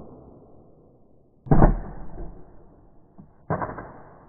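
Airsoft shotgun fired twice, about two seconds apart. Each shot is a sharp report followed by its BBs striking an electronic target.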